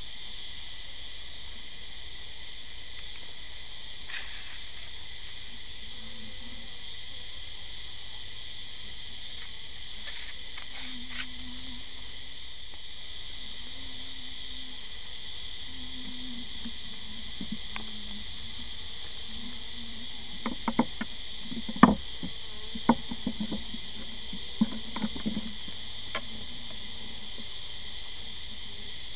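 Wooden hive frames knocking and clicking against a nuc box as a frame is pried loose and lifted out: a cluster of sharp knocks about two-thirds through. Behind them runs a steady, high-pitched insect chorus.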